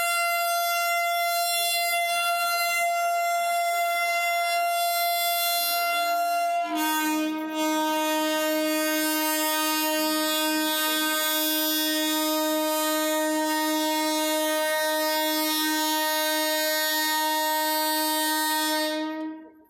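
WAP-5 electric locomotive's twin-tone air horn held on one long blast: first the high note, then about seven seconds in it drops to the lower note with a rush of air, held steady until it cuts off sharply near the end.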